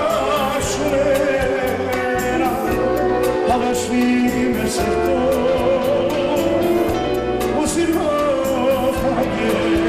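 Armenian rabiz song: a male singer sings a wavering, ornamented melody over a live band with a steady drum beat.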